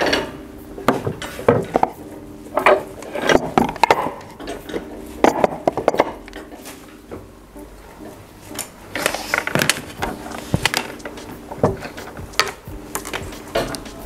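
Irregular clicks, knocks and light clattering of moulded plastic parts and metal tools being handled on a workbench.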